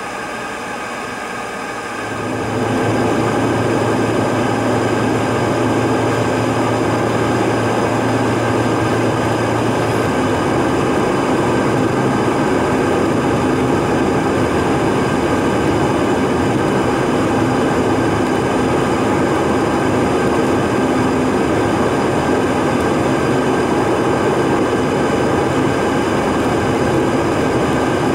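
Car driving at road speed, heard from inside the cabin: steady engine and tyre noise with a low hum, which steps up in level about two seconds in.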